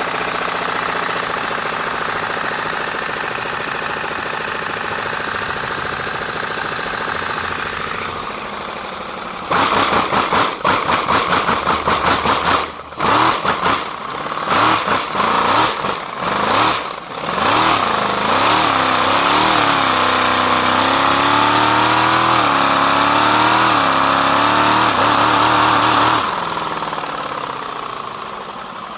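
Compressed-air-powered 3D-printed V4 engine running. It starts steady, then about nine seconds in turns loud and choppy with rapid exhaust pulses. It then settles into a steady run whose pitch wavers up and down, and drops back quieter near the end.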